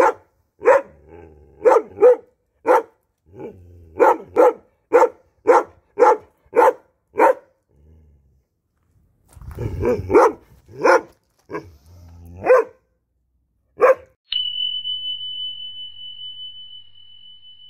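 A dog barking repeatedly in short, sharp barks, about two a second, with a brief pause near the middle. Then a single bright bell-like chime rings out and fades slowly.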